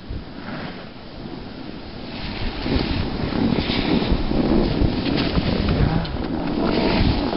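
Wind buffeting the microphone of a camera carried down a ski run, a rumbling rush with skis hissing over the snow; it grows louder about two seconds in.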